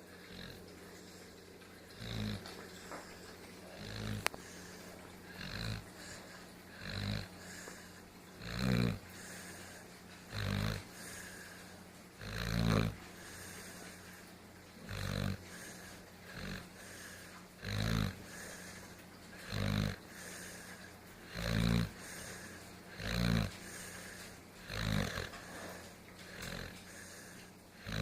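An animal snoring, a short grunt on each breath, repeating steadily about every one and a half to two seconds.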